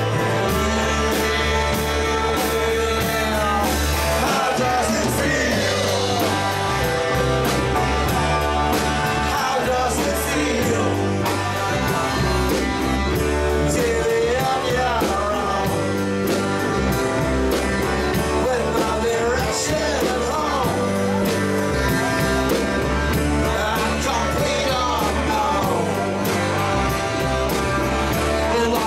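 Live rock band playing: male vocals over electric guitar and drums, with a steady beat and a bass line moving about once a second.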